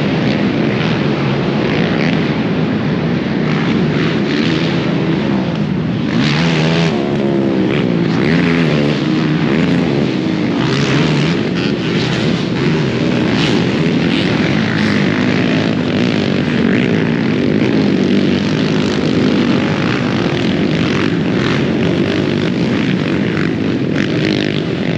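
Racing ATV (quad) engines running hard on a motocross track, their pitch rising and falling as they accelerate and shift, with more than one engine heard at once.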